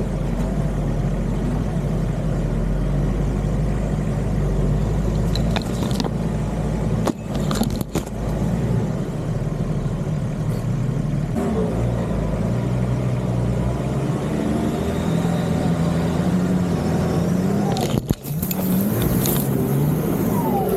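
Nissan Patrol Y61's engine running under load while crawling off-road, its pitch rising and falling, with sharp knocks about seven to eight seconds in and again near eighteen seconds.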